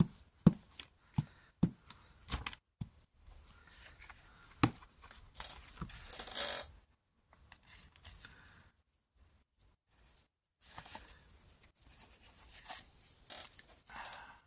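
Paper being worked by hand: a glue stick rubbed over a thin old book page with a few sharp taps in the first couple of seconds, a louder crinkle of paper about six seconds in, then the page rustling as it is lifted and folded near the end.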